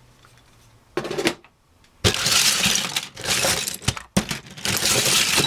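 Loose plastic Lego pieces clattering and rattling as a hand rummages through a box of them, in several bursts of clicking.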